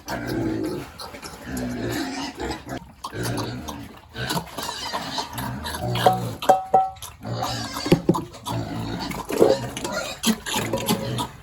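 Pigs grunting over and over in irregular bouts, with a few sharp knocks a little past the middle.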